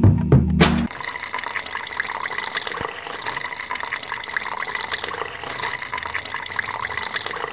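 Water pouring in a thin steady stream from a plastic tube into a small plastic jar, a continuous splashing trickle as the jar fills. Background music with drums cuts off about a second in, just before the pouring is heard.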